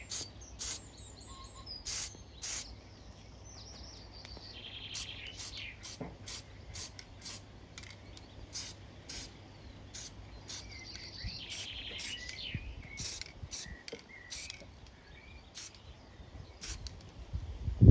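Birds singing, with a brief trilling phrase repeated about every six seconds, over a scatter of short sharp ticks.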